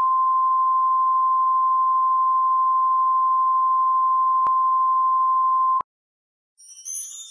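Steady, pure, high-pitched test tone of the kind played under colour bars, with a faint click about four and a half seconds in, cutting off suddenly near six seconds. After a brief silence, high twinkling music notes start in the last second.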